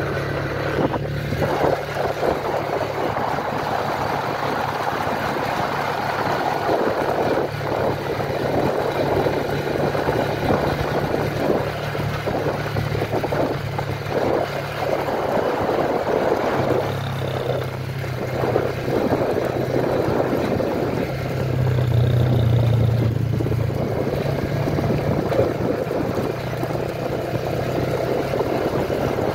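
Motorcycle engine running steadily while riding, with wind rushing over the microphone. The engine gets louder briefly about three-quarters of the way through.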